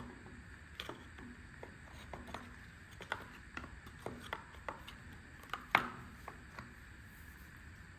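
Irregular light clicks and taps of hand tools and chainsaw parts being handled during reassembly, with one sharper knock about six seconds in.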